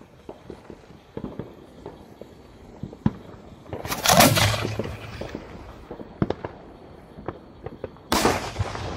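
A 5-inch aerial firework shell fired from its mortar tube: the lift charge goes off with a deep boom and a whip-like crack about four seconds in, the crack showing that the shell has left the tube. About four seconds later the shell bursts overhead with a second loud bang.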